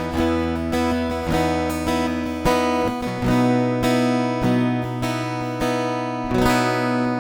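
Guild F-250CE Deluxe jumbo acoustic guitar played in strummed chords with a rich low end, the chord changing about three seconds in.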